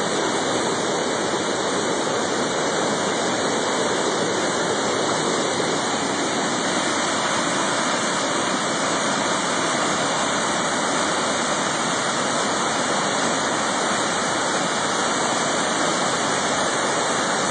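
Waterfall in flood, raging high water pouring over the falls in a steady, dense rush with no let-up.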